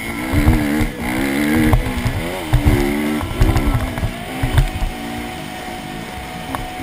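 Dirt bike engine heard from the rider's own bike, revving up and falling off again and again as the throttle is worked over the track. Heavy wind buffeting and thumps hit the microphone.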